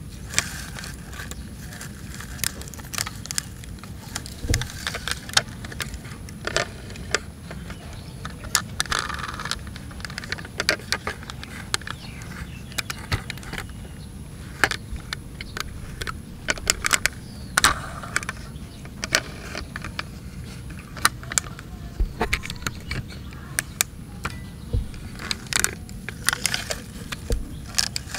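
Irregular clicks, rattles and scrapes of die-cast toy fire trucks being handled, with plastic and metal parts clicking as an aerial ladder is raised and turned, over a steady low background rumble.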